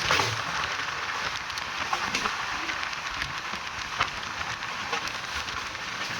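Indian Railways passenger train running along the track, heard from on board: a steady rushing noise of wheels and air, with occasional sharp clicks and knocks.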